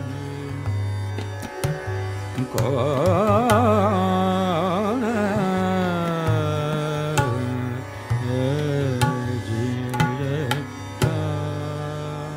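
Hindustani classical khayal singing in Raag Bairagi Bhairav: a male voice sings a long, heavily ornamented phrase with wavering pitch starting a couple of seconds in, then a shorter phrase. Underneath there is a steady low drone and slow, sparse tabla strokes.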